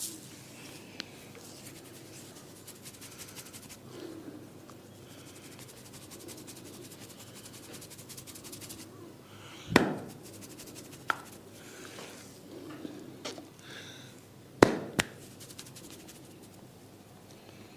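Head massage: soft rubbing and scratching on hair and scalp, broken by four sharp smacks. The two loudest come about ten and fifteen seconds in.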